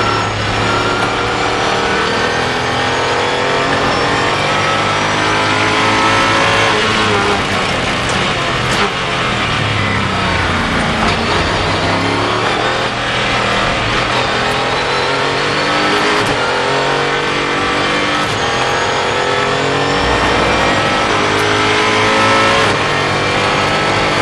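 Mosler Super GT race car's V8 engine heard from on board at racing speed, with wind and road noise. Around the middle the revs drop through downshifts under braking for a corner, then the engine pulls hard and climbs through several gears, the pitch rising and breaking at each upshift.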